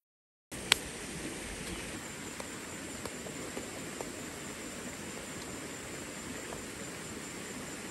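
Steady rush of a shallow forest stream, coming in half a second in, with one sharp click just after it starts and a few faint ticks.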